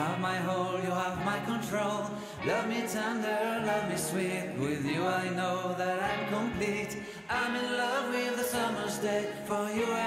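Background pop music with sung vocal harmonies held across the chords, without clear words.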